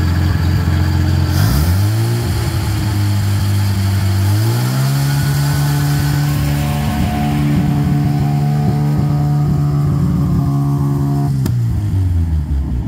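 Mazda RX4's rotary engine running after sitting for 16 years, burning off diesel that was poured in to free it up. It idles, revs up in two steps in the first five seconds and holds the higher speed, then drops back to idle with a click about a second and a half before the end.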